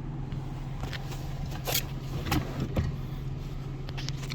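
A few light clicks and taps of metal parts being handled at the parking-brake cable and pedal linkage, spread over a few seconds, over a steady low hum.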